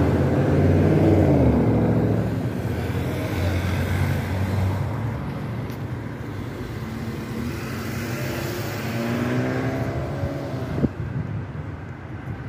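Car traffic passing along a street: a car engine goes by close at the start, its pitch falling as it passes, and another vehicle's engine rises in pitch about eight seconds in. A single sharp tap comes near the end.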